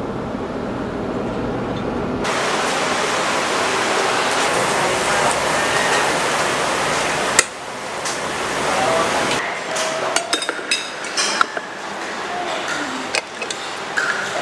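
Car cabin road noise, a low rumble, for about two seconds. It cuts to a loud steady hiss for about five seconds. Then, in the last few seconds, comes a run of sharp clinks of plates, glasses and cutlery at a table.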